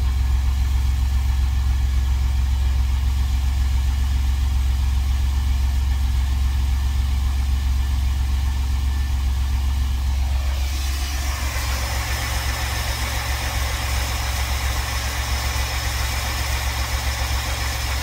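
Chevrolet Astro's 4.3-litre V6 idling steadily with the engine cover off, running on a freshly replaced fuel injector spider. About ten seconds in the sound turns brighter, with more hiss over the steady low engine note.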